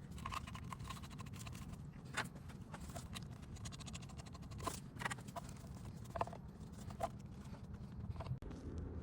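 Scattered light clicks and knocks of car parts being handled and fitted by hand in an engine bay, over a low steady hum.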